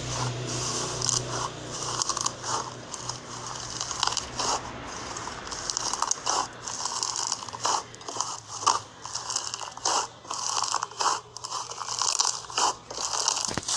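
Slime being squeezed and worked by hand, making irregular crunchy crackling and squishing sounds.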